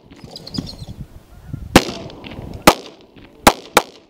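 Four gunshots over about two seconds, the first three roughly a second apart and the last two in quick succession, each a sharp crack with a short echo.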